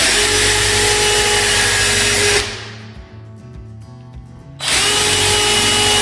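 Cordless drill boring two pilot holes into a wooden door jamb for a strike plate: two steady runs of about two seconds each with a constant whine, a quieter pause between them.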